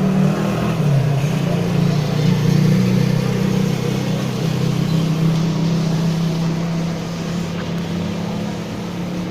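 A steady, loud engine-like drone with a low hum and a hiss of noise over it.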